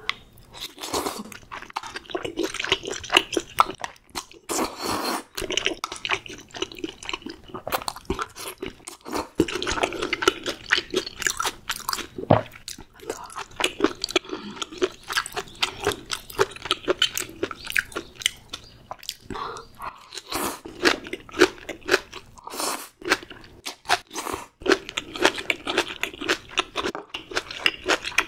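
Close-miked mouth sounds of eating spicy stir-fried octopus with bean sprouts: a continuous run of crunching bites and chewing, with a few short pauses.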